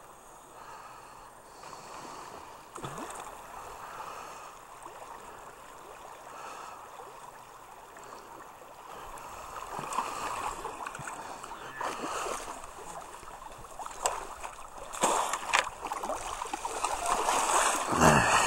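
Water sloshing and splashing close to the microphone, getting louder in the second half, with sharp splashes about ten, twelve and fifteen seconds in and a heavy splash near the end.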